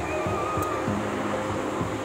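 Background music with long held notes over a steady noise.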